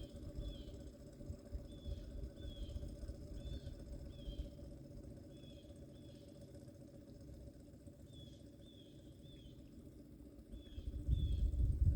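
A bird repeating short, high, slightly falling chirps, singly and in quick runs of two or three, over a low rumble that grows louder near the end.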